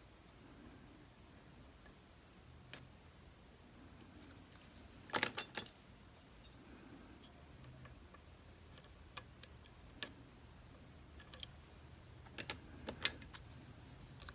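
Small metallic clicks and rattles of lock-picking tools working in a DOM RS8 profile cylinder, scattered and sparse, with a quick cluster of sharper clicks about five seconds in and another near the end.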